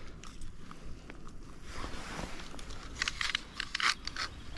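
Handling noise as a tape measure is pulled out along a hand-held fish: faint rustling, with a quick run of clicks about three seconds in.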